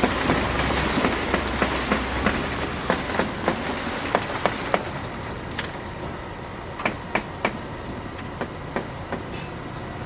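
Construction-site knocking and clatter: irregular sharp knocks, several a second at first and thinning out later, over a steady rushing noise. A low hum stops about two seconds in.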